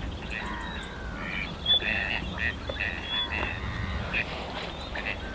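Waterbirds calling on the water, short calls repeating about twice a second, over a steady low rumble of distant road traffic.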